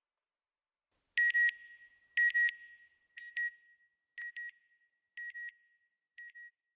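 Electronic double beeps at one steady high pitch: six pairs about a second apart, each pair fainter than the one before, dying away like an echo.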